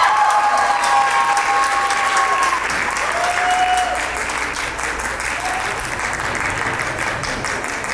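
Audience applauding after a performance ends, the clapping easing off slightly toward the end.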